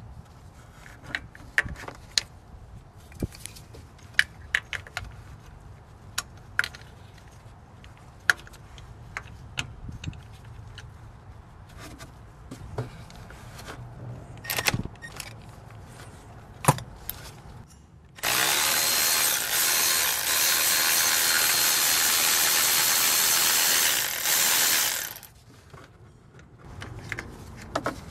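Cordless electric ratchet (Milwaukee M12) running steadily for about seven seconds to turn a spark plug socket, loosening a spark plug, then a short second burst. Before it come scattered clicks and knocks of the socket and extension being fitted into the plug well.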